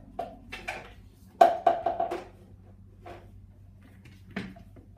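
Several knocks and clatters of hard objects being handled, the loudest a quick cluster about a second and a half in with a short hollow ring after each hit, then two fainter knocks later.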